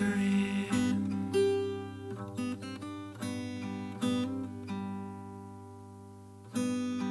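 Acoustic guitar strumming chords, each strum ringing out and fading, in an instrumental passage of an indie folk rock song. The playing thins out before a louder strum near the end.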